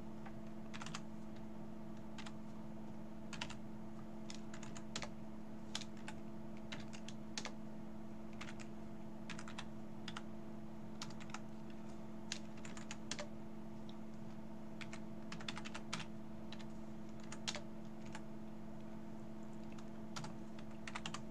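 Computer keyboard typing in irregular bursts of keystrokes, over a steady low electrical hum.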